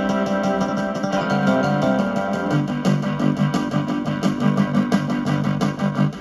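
Roland MT-120 sound module playing a sequenced music demo: sampled instrument voices over a bass line of quick repeated notes that comes in about two and a half seconds in.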